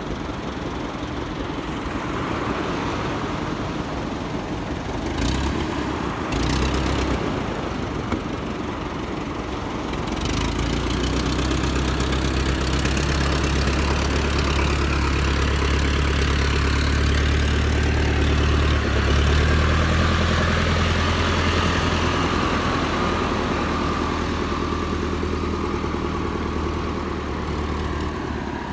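Farm tractor engine running steadily at a low idle, growing louder about ten seconds in, with surf on the beach behind it.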